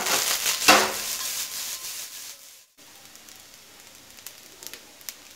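Rice frying in a nonstick wok: loud sizzling as the wok is tossed, with a sharp knock in the first second. After a brief break the sizzle goes on more quietly, with scattered light crackles.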